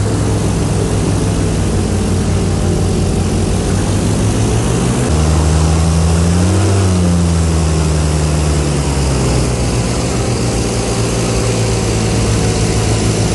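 Airboat engine and air propeller running steadily. About five seconds in the revs pick up, the pitch rises and then falls back, settling again a few seconds later.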